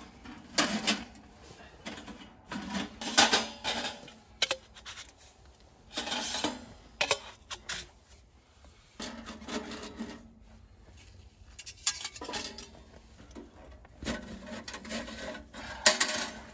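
Small sheet-metal wood stove and its stovepipe sections being handled and fitted together: irregular metal clanks, scrapes and rattles, the sharpest clank near the end.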